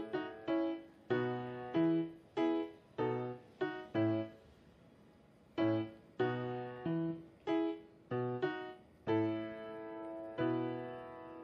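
Background music: a light keyboard melody of separate struck notes, pausing for about a second about five seconds in.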